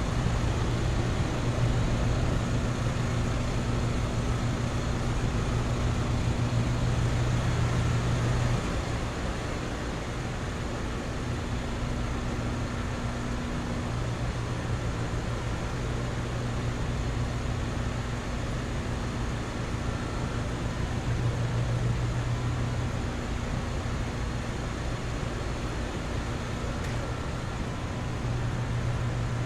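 Outdoor central air conditioner condensing units running, a steady compressor hum under the rush of the condenser fans, a little quieter from about eight seconds in.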